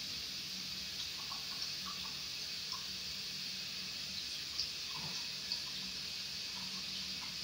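A steady hiss with a few faint soft ticks and rustles, as a cat noses through clothes in a laundry basket.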